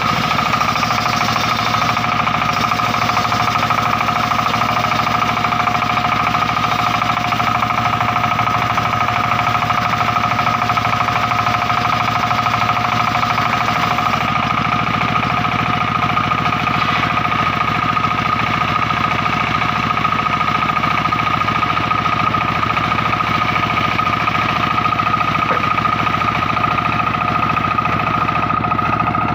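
Engine-driven circular sawmill running steadily: the engine's rapid, even knocking under a steady high whine.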